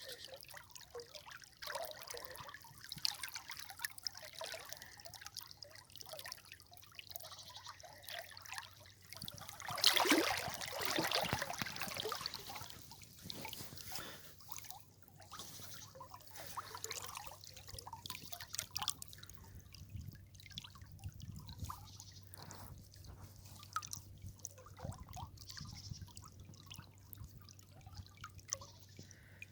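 River water trickling and dripping in an uneven patter of small splashes, with a louder gush about ten seconds in.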